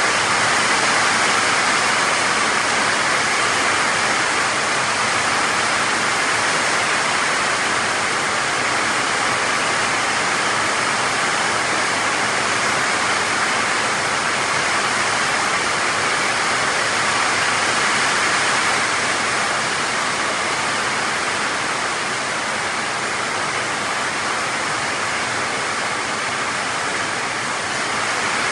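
Heavy rain pouring down steadily, a dense even hiss with no letup.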